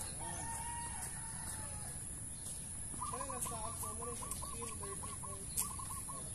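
A rooster crowing once, held for about a second and a half near the start, then chicken clucking in a quick run of short repeated notes. A tennis ball is struck sharply by a racket near the end.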